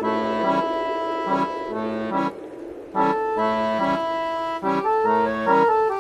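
Background music: an instrumental tune of held notes over a repeating bass line, dipping briefly about two and a half seconds in.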